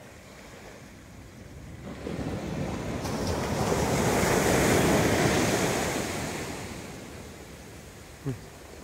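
Ocean surf: a wave breaking and washing up the beach, swelling over a couple of seconds to a peak about halfway through, then slowly fading.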